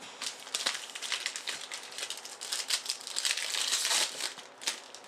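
Foil wrapper of a trading-card pack crinkling as it is handled and peeled open by hand: a dense run of sharp crackles, loudest about three to four seconds in.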